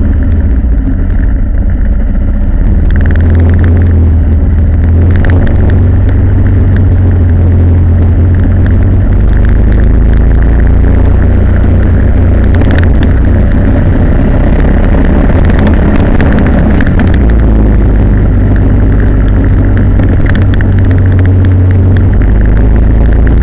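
A road vehicle on the move: steady engine and road noise with a strong low rumble, loud throughout.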